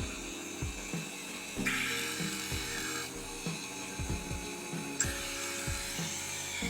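Background music with a steady beat and held synth chords that change every second or two.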